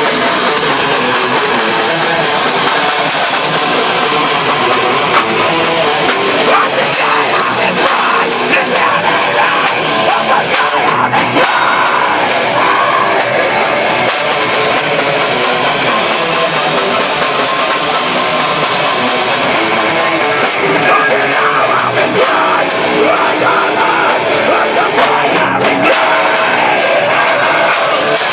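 A heavy metal band playing loud: distorted electric guitars over a drum kit, running on without a break.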